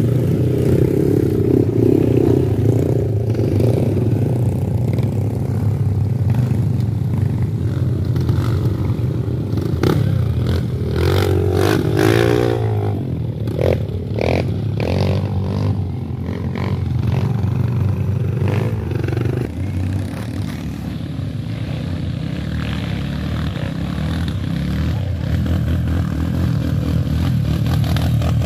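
Trail motorcycles (dirt bikes) riding past one after another on a muddy track, their engines running steadily and revving, the pitch rising and falling with the throttle.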